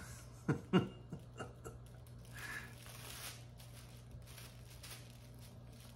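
A cat scuffling with a fabric mat on a wooden floor: a few sharp light knocks in the first second, then a rustling, scratching scuffle of fabric about two to three seconds in. A steady low hum runs underneath.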